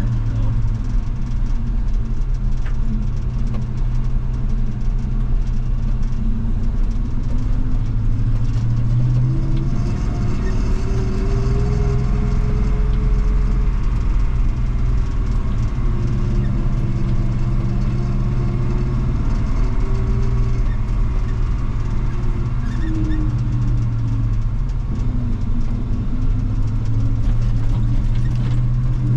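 1980 Chevy K20 pickup engine running steadily, its pitch rising and falling slowly with the engine speed.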